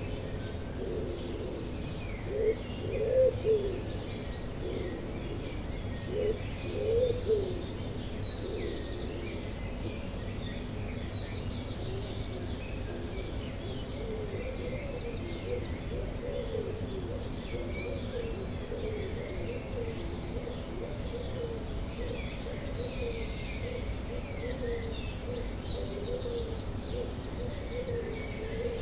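Dawn chorus: a pigeon cooing in low, repeated phrases, loudest in the first eight seconds and then carrying on more softly. Many small songbirds chirp and trill higher up throughout, over a faint steady low rumble.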